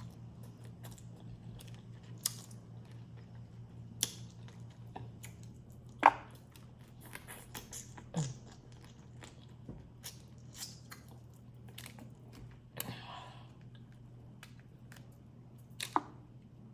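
Close-up eating of a crawfish boil: chewing, with scattered sharp clicks and snaps, the loudest about six seconds in, over a steady low hum.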